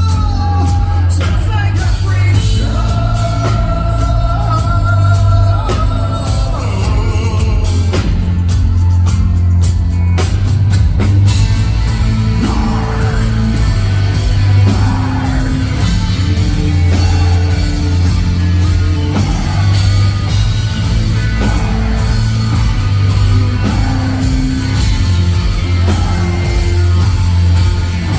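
Live heavy metal band playing loud, with distorted guitars, heavy bass and drums, and vocals.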